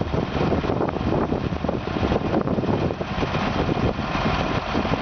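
A heavy engine running steadily at a low, even speed, with a dense, rumbling noise.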